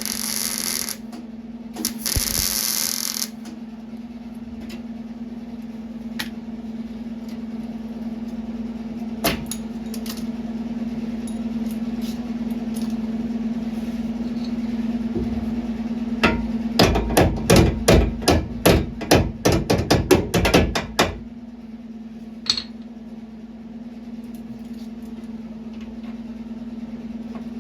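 Hammer blows on steel, a run of about fifteen quick strikes over some five seconds starting about two-thirds of the way in, over a steady low hum. Two short bursts of hiss near the start.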